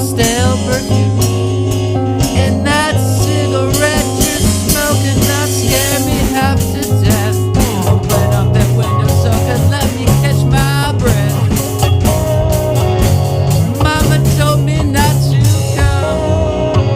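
Instrumental break of a rock cover song: steady bass line and drum kit beat, with electric guitar and a wavering lead line over it.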